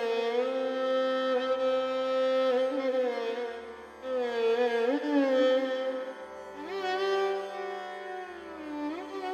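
Carnatic violin music: a bowed violin melody of held notes joined by sliding, ornamented glides in pitch.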